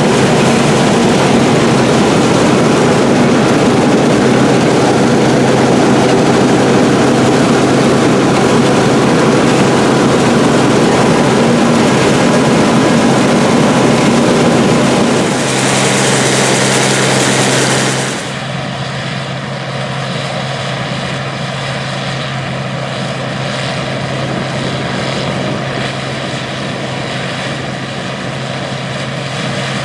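International 815 combine running steadily while harvesting corn: a loud, even drone of engine and threshing machinery with a steady low hum. About 18 seconds in, the sound drops a little and turns duller.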